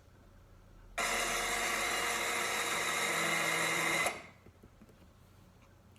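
Electric screwdriver motor running steadily for about three seconds, a whine with many tones, starting suddenly about a second in and winding down quickly.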